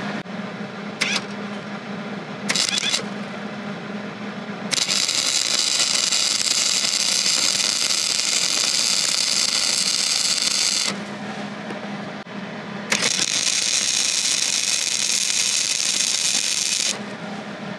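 Hobart 140 MIG welder laying weld onto a steel shear blade. Two brief arc strikes come in the first few seconds, then two long runs of steady arc crackle, about six and four seconds long, with a pause between them. A steady low hum sits underneath throughout.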